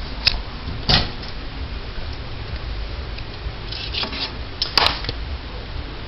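Microwave oven door handled: a sharp clunk about a second in as it is opened, then a few more clicks and knocks around four to five seconds in.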